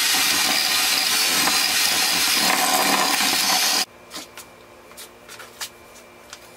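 Electric hand mixer running steadily, its beaters whirring through cream cheese in a glass bowl, then switched off abruptly about four seconds in. A few light clicks and knocks follow as the mixer is handled.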